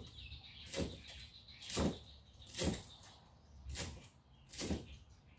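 Large kitchen knife chopping down onto a thick round wooden chopping block, five chops at about one a second.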